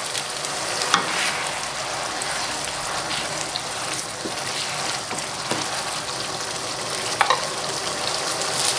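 Curry spice paste bubbling and sizzling in hot oil in a wok, stirred with a spatula, with a couple of sharp knocks. The paste is being fried until the oil separates from it.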